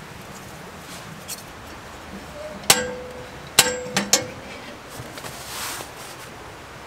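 Door of a small steel tent wood stove being shut and latched: a few sharp metal clanks, the first two with a short ring, clustered from a little under three seconds in to just past four seconds, followed by a soft hiss.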